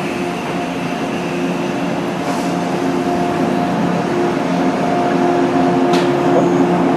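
Electric passenger train moving slowly past along a station platform, a steady hum of several tones over a low rumble, with one sharp click about six seconds in.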